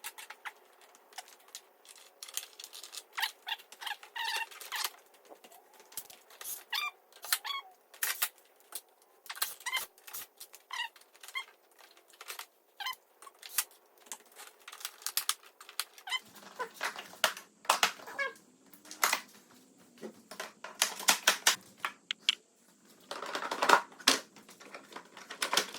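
Plastic clicks, taps and squeaks of snowmobile body panels and trim being handled and snapped back into place, in an irregular string of short sounds.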